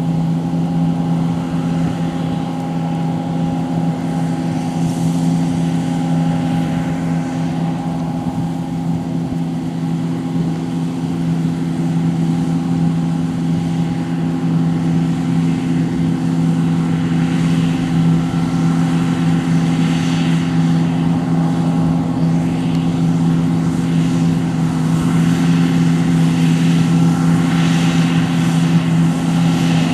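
John Deere T560 combine harvester running steadily under load, its engine and threshing drone holding one constant pitch and growing slightly louder toward the end.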